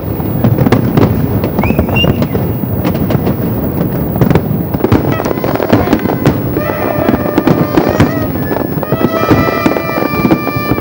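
Fireworks display: a dense, continuous run of rapid bangs and crackles, with some steady held tones joining in during the second half.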